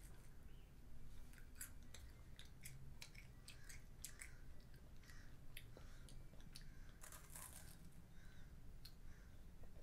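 A young child chewing and biting into sweets: faint crunching and small mouth clicks scattered throughout, with a slightly louder crackle about seven seconds in.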